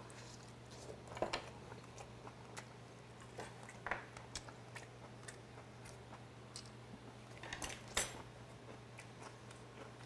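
Faint eating sounds: chewing on boiled chicken and a metal spoon clinking against the pot and dishes, as scattered small clicks with louder knocks about a second in, at about four seconds and near eight seconds. A steady low hum runs underneath.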